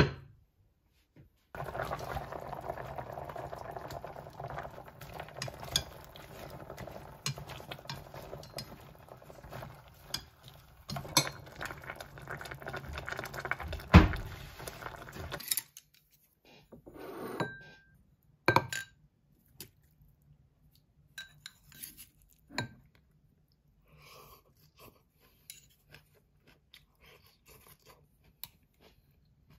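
Kitchen cooking sounds: for about fourteen seconds a steady sound of liquid moving in a pot, with small metal clinks. Then come separate clinks and taps of pots, a bowl and a spoon, one of them ringing briefly about halfway through, and faint light taps near the end.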